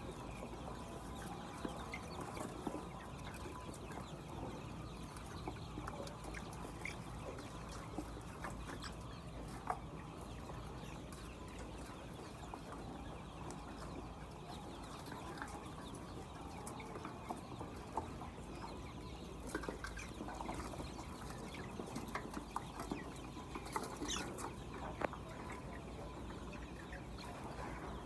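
Flock of laying hens clucking, with many short sharp clicks scattered through it over a steady low hum.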